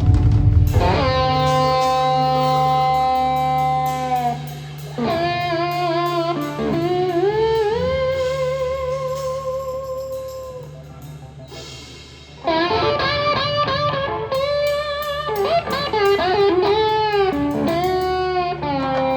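Electric blues guitar playing lead lines over a bass: long sustained notes with wide vibrato and gliding bends, one held note fading away partway through, then a sudden quick flurry of notes.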